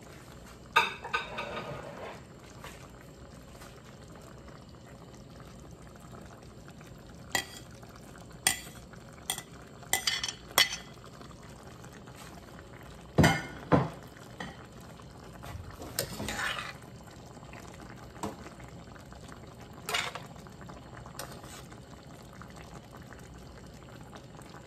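Metal tongs clinking and scraping against a stainless steel pan as cooked chicken pieces are dropped in and stirred through vegetables, with the pan sauce simmering steadily underneath. The clinks come irregularly, about a dozen in all.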